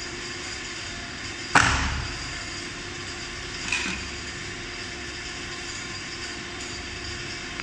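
A loud thud about one and a half seconds in as the electric kids' scooter knocks against the hard floor while it is handled, then a smaller knock about two seconds later. A steady background hum runs throughout.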